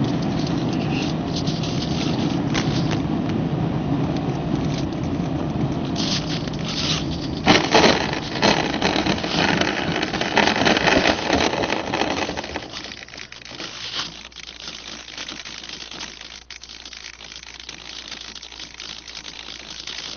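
Onboard-camera audio from an RC Cub model plane landing on a grass field: steady wind and airframe noise, then from about seven seconds in a louder, rough scraping noise for about five seconds as the wheels touch down and roll through the grass, after which it goes much quieter.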